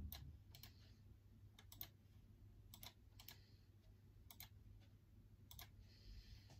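Faint, unhurried typing on a computer keyboard: scattered single key clicks, some in quick pairs.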